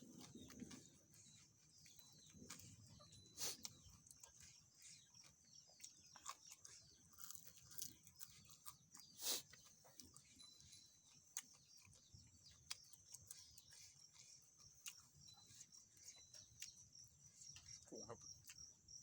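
Faint, steady high-pitched chirring of insects, with scattered short clicks and smacks from eating.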